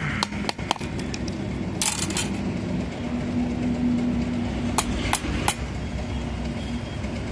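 Workshop noise: a steady low hum with scattered sharp knocks and taps, several close together about two seconds in and three single ones around five seconds.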